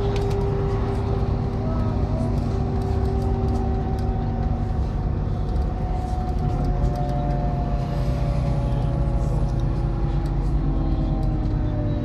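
MAZ-103 city bus under way, heard from inside: a heavy engine rumble with a steady drivetrain whine that shifts pitch about halfway through, and light rattling clicks.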